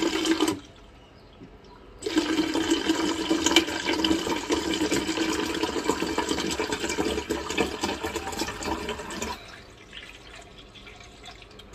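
Water running steadily into a cup. It stops about half a second in, starts again around two seconds in, and runs until about nine seconds in.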